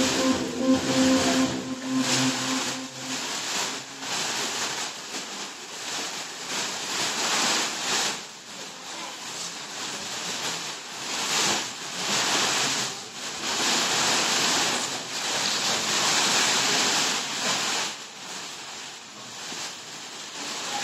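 Large sheet made of plastic packaging wrappers being waved and shaken, rustling and crackling in repeated surges every few seconds.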